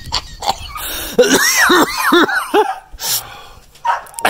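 A man coughing and hacking from the burn of a raw Trinidad Scorpion chili pepper, with a short run of laughter about a second and a half in.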